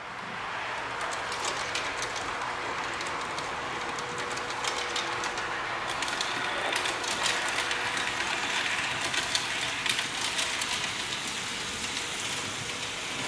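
Märklin H0 Class 420 S-Bahn model train running past at close range: a steady rolling noise of wheels and centre-rail pickup with many fine clicks. It builds up in the first second and fades near the end. This is the train's running noise over Märklin C-track with point contacts and over track with a continuous brass-wire centre conductor, played to compare how loud each is.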